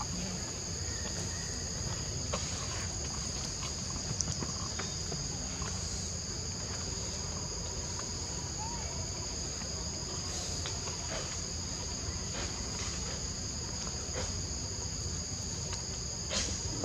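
Steady high-pitched drone of forest insects, held as two constant tones, over a constant low rumble.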